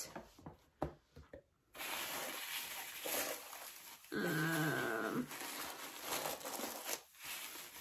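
Tissue paper rustling and being handled in a box, with a few light clicks at first. About four seconds in comes one short, low, whine-like voiced sound, the loudest thing here.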